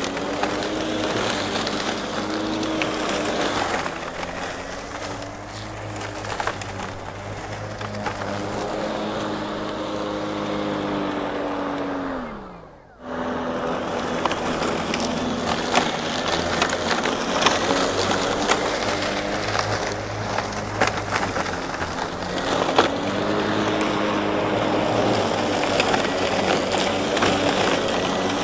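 RYOBI 40V HP Whisper Series 21-inch battery mower (RY401021) cutting through thick, thigh-high weeds and grass: its brushless blade motor hums while stems crackle and tick against the deck. The pitch dips now and then as the motor bogs slightly in the heavy growth, and about halfway through the motor winds down nearly to a stop before it is running again.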